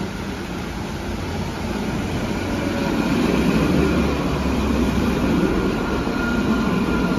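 Steel-wheeled, catenary-powered light-rail tram passing close by. Its rumble and wheel-on-rail noise swell about three seconds in, with a thin steady whine above.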